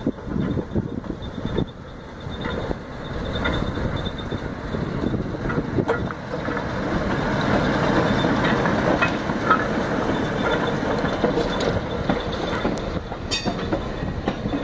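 Small diesel shunting locomotive, D2325, passing close while hauling a coach: its diesel engine running under load and its wheels clacking over the rail joints, loudest about halfway through. A brief high squeal comes near the end.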